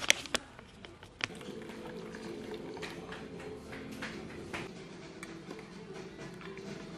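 A few sharp clinks, then liquid pouring steadily into a ceramic mug from about a second in.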